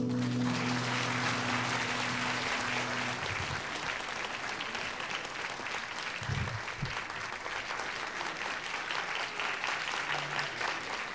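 Audience applauding steadily, slowly fading, after a guzheng ensemble piece. The last low notes of the music ring on under the clapping for about the first three seconds.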